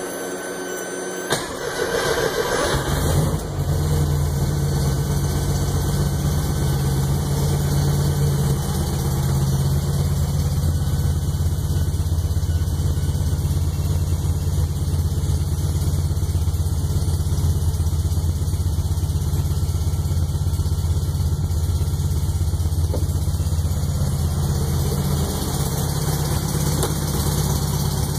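Freshly rebuilt 1641cc engine cranked on the starter, catching about two to three seconds in, then running at a steady idle. The owner reports a popping and knocking noise from it after the rebuild.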